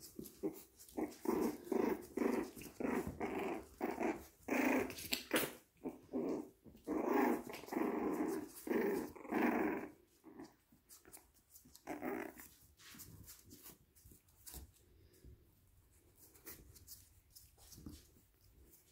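Yorkshire terrier puppies growling in play as they mouth a hand: a run of short growls through the first half, one more a little later, then it goes quieter.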